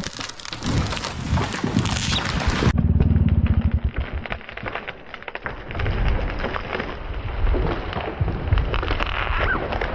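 A felled tree coming down: branches crackling and snapping through the canopy, with a heavy low thud about three seconds in as the trunk hits the ground.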